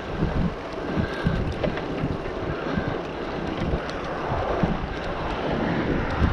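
Wind buffeting the microphone of a handlebar-mounted camera on a moving bicycle: a steady rushing with irregular low gusts.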